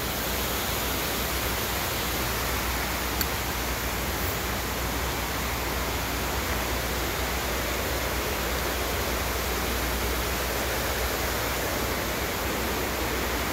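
Steady, even rushing of a river running below the trail, with one faint click about three seconds in.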